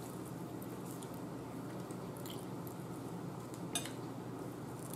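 A fork clicking lightly against a bowl of food a few times, the sharpest click a little under four seconds in, over a steady low background hum.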